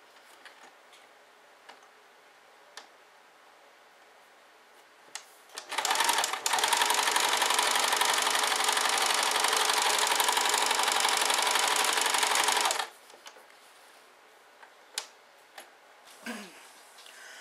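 Electric sewing machine stitching through muslin, starting about six seconds in with a brief hitch, then running steadily for about six seconds before stopping. Light clicks of fabric handling come before and after.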